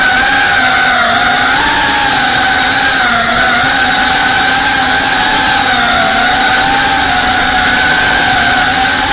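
FPV quadcopter's electric motors and propellers whining steadily, the pitch wavering gently up and down with throttle, heard close up from the drone itself.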